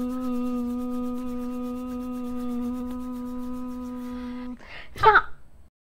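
A person holds one long, steady hummed note, which stops about four and a half seconds in. Half a second later comes a short, loud yell with a falling pitch, a karate-style cry.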